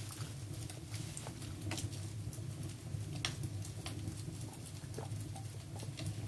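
Recording of a crackling campfire playing as background sound: small irregular pops and snaps over a steady low hum.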